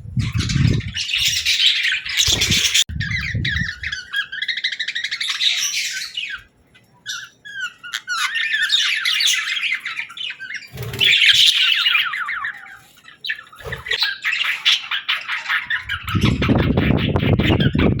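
Budgerigar chattering and warbling: a continuous run of quick chirps and squawky notes, pausing briefly about a third of the way in. A low rumble joins it near the start and again near the end.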